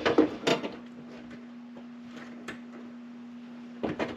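Handling noise and small clicks as a spade connector is worked onto a terminal of a new oven heating element, over a steady low hum.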